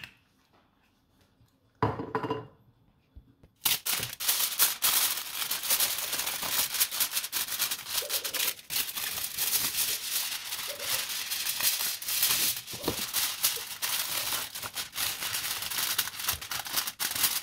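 Aluminium foil crinkling and crackling as it is pulled over a roasting tray and pressed down around the edges, a dense, continuous crackle that starts about three and a half seconds in. A short knock about two seconds in.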